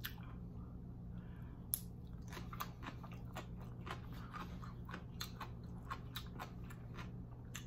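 Close-miked chewing of a mouthful of chewy ramen noodles: soft, wet mouth clicks and smacks come irregularly, with one sharper click just under two seconds in.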